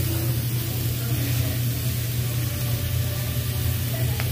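Meat sizzling on a tabletop Korean BBQ grill over a steady low hum, with a single light click near the end.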